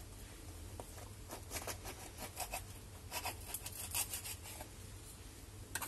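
Kitchen knife sawing through a crisp baked puff-pastry crust topped with crunchy almonds and sugar: faint, irregular crackling and scraping.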